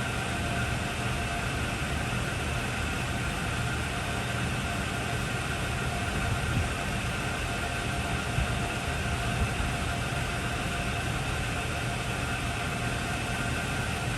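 Hardinge HLV-H toolroom lathe running with its cross slide under power feed: an even machine hum with a couple of steady whine tones, and a few light knocks around the middle.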